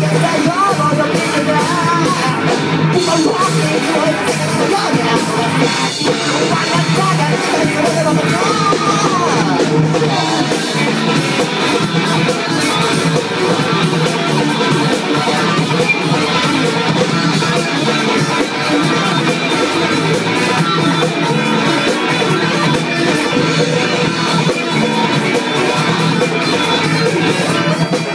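Live rock band playing at full volume: electric guitars, bass guitar and a drum kit with constant cymbals, with a lead vocal singing over it in places.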